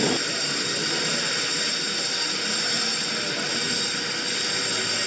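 Steady, even hiss of a large exhibition hall's background noise.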